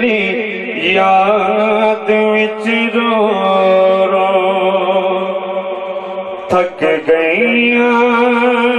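A man chanting a Punjabi devotional lament into a microphone, drawing out long, wavering held notes over a steady low drone, with a short break for breath about two-thirds of the way through.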